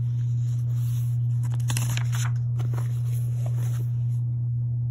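A page of a picture book being turned by hand, the paper rustling and crackling in a couple of short spells near the middle. Under it runs a steady low hum.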